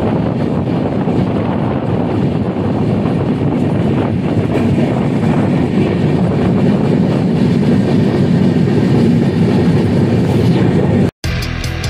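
Passenger train running at speed, heard from the open door: a steady rumble of wheels on the rails. It cuts off about eleven seconds in, and music begins.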